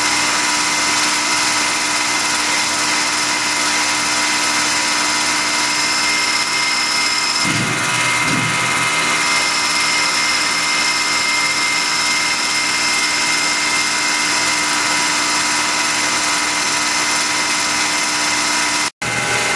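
Tormach Duality CNC lathe on a PCNC 1100 mill turning an aluminium spike, taking short roughing passes: a steady machine whine with several held tones. A low rumble comes in for about a second and a half a little before halfway, while the highest tone drops out. The sound cuts out for an instant just before the end.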